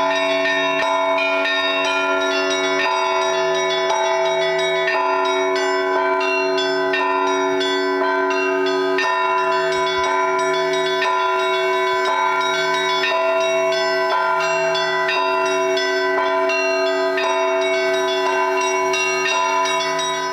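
Russian Orthodox church bells rung by a bell-ringer in a festive Easter peal: small bells struck in quick patterns over the long ringing of larger bells, with a lower bell sounding at a steady beat of about one stroke a second.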